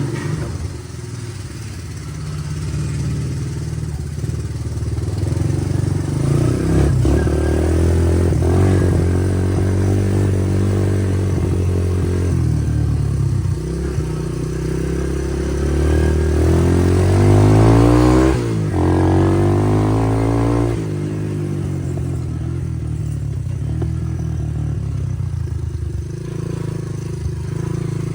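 1981 Honda 185S's single-cylinder four-stroke engine running and being revved, its ignition timing set back to factory. The pitch rises and falls several times, climbing highest about two-thirds of the way through and then dropping suddenly.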